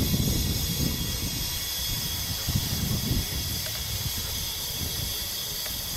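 Steady hiss of compressed gas flowing from a cylinder through a fill tube into a large latex weather balloon, with wind rumbling on the microphone beneath it.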